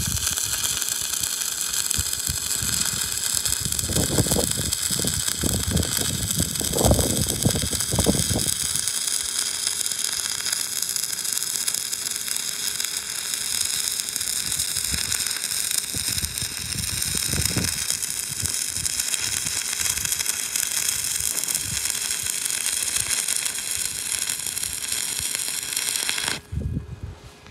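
Stick welding arc from a 3/32 7014 electrode run on DCEN, burning as a steady, dense crackling hiss while a horizontal bead is laid. It cuts off suddenly about a second before the end as the arc is broken.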